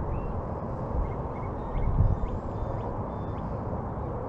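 Steady low outdoor rumble, like wind or distant traffic, with a few faint short bird chirps and a soft thump about two seconds in.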